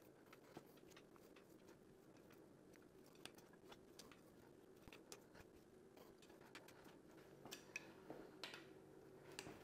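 Near silence with faint scattered clicks and creaks from a bar and socket turning the M120 V12's cylinder head bolts, the second 90-degree angle-tightening stage.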